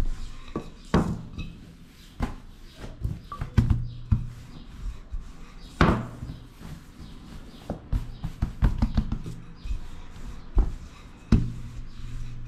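Wooden rolling pin rolling out pizza dough on a floured tabletop, with irregular knocks and thuds as the pin and hands bump the table.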